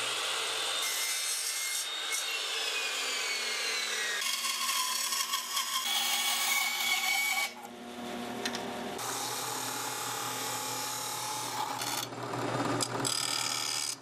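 Power saws cutting bamboo, in short clips that change abruptly: a miter saw's whining blade cutting through a bamboo pole, with the whine falling in pitch a few seconds in as the saw runs down, then a band saw cutting bamboo.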